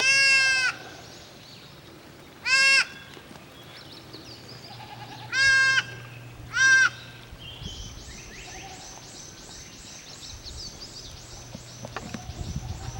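Goats bleating: four loud calls in the first seven seconds, then a faint high, rapidly repeated chirping for the rest.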